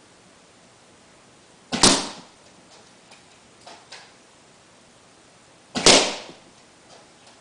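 Tokyo Marui VSR-10 G-Spec spring-powered airsoft sniper rifle firing twice, about four seconds apart: each shot a sharp spring-piston crack with a quick double onset. Faint clicks sound between the shots.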